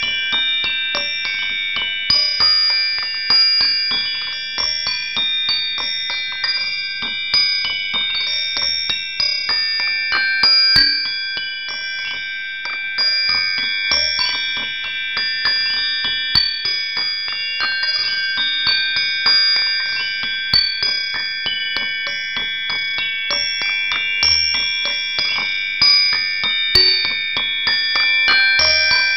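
Relaxation music of high-pitched, bell-like chimes: notes struck irregularly, each ringing on and overlapping the next.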